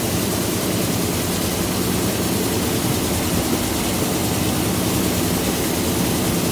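Top-loading washing machine in its spin cycle: the tub and agitator spinning with a steady mechanical drone.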